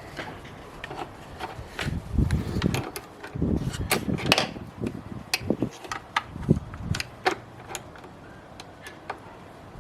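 Irregular clicks, knocks and light rattles of parts being handled and fitted together by hand, with a few heavier dull thumps in the first half.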